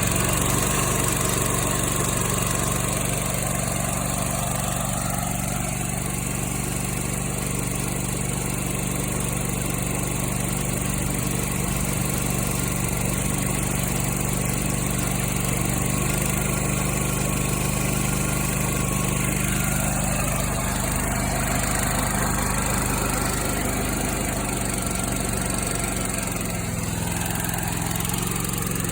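Kohler Command Pro ECV749 EFI V-twin engine, brand new, running steadily at idle on its first start, with a slight change in speed near the end.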